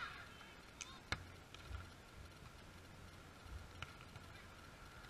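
Faint open-air ambience with a low wind rumble on the microphone, broken about a second in by one sharp smack of a hand striking a beach volleyball, with a few fainter ticks later.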